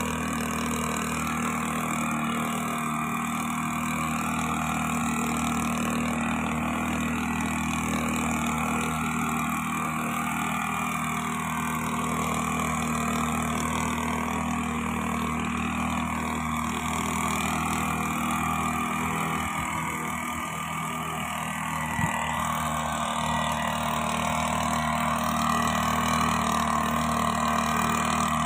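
Backpack power mist blower's two-stroke engine running steadily while it blows granular fertilizer over a rice crop.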